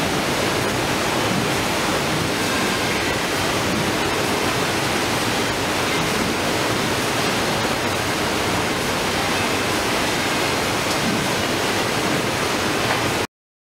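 Steady rushing noise of a running fish heading-and-gutting line (Baader 444), with its conveyors and water flow, with a faint high whine; it cuts off abruptly near the end.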